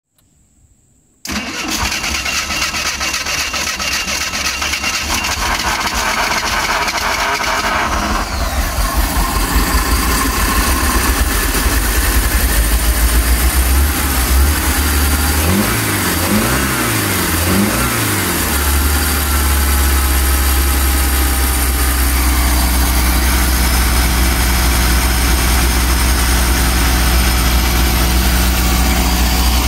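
Inboard boat engine firing up about a second in and running. Its speed rises and falls several times around the middle, with the hand working the throttle at the carburetor, then it settles into a steady idle.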